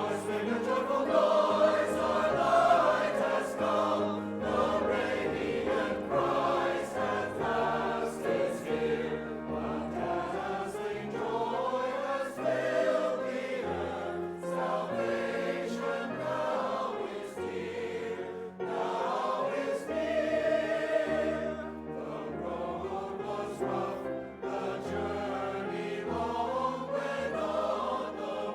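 A church choir singing with instrumental accompaniment, several voice parts moving together in sustained phrases.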